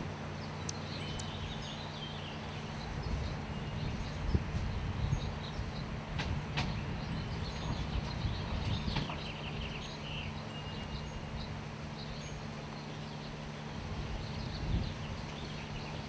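A steady low mechanical hum, with faint short high bird chirps now and then and a couple of sharp clicks.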